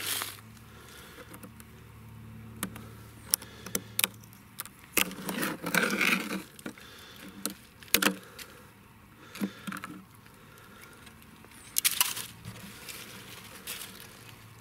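Footsteps crunching and rustling in dry leaf litter, with scattered crackles and knocks as a weathered plastic chair is handled; the densest bursts come about five seconds in, at eight seconds and near twelve seconds.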